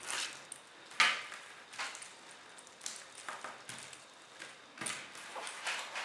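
Irregular clicks, taps and knocks of small hard objects being handled, the sharpest about a second in.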